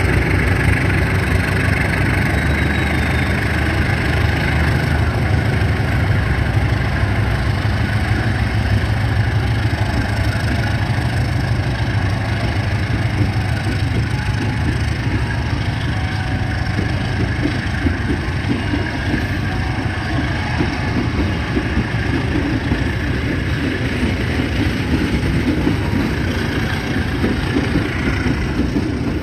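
Diesel-electric locomotive engine running steadily with a deep hum. About halfway through, the hum fades and a rougher rumble takes over.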